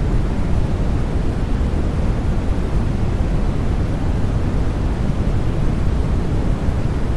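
Steady white noise for lulling a baby to sleep: an even, deep rushing sound, heaviest in the low end with little hiss on top, unchanging throughout.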